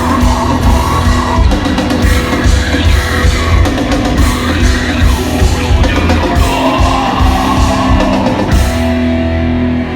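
Heavy metal band playing live: distorted electric guitars and a drum kit. Near the end the drums and cymbals stop and a guitar chord rings on.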